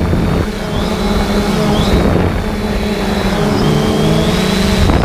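3DR Solo quadcopter's motors and propellers whirring loudly, heard from the onboard camera, with the pitch shifting up and down as the motor speeds change in flight.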